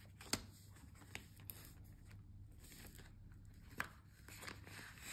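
Faint handling of paper banknotes and a clear plastic binder pocket: soft rustling broken by a few light clicks.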